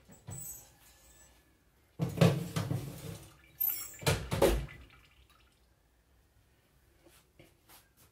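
Two bursts of kitchen handling noise, each about a second long, about two and four seconds in; the second ends with a dull low thump.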